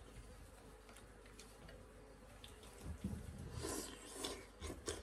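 A person slurping noodles from a bowl: a few short wet slurps in the second half, with a soft low thump just before them.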